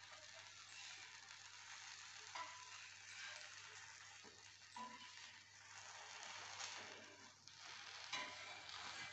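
A dosa sizzling faintly on a hot tawa, with a few short scrapes of a steel spatula against the pan as the dosa is folded and rolled, about two, five and eight seconds in.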